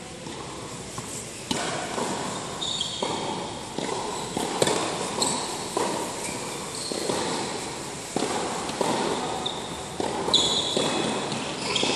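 Doubles tennis rally on an indoor hard court: racket strikes and ball bounces in a run of sharp hits, about one a second, with short high squeaks of shoes on the court between them, echoing in a large hall.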